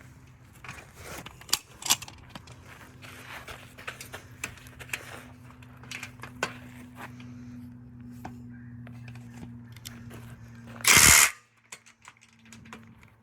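Irregular mechanical clicking and knocking over a steady low hum, with one loud, short noisy burst near the end.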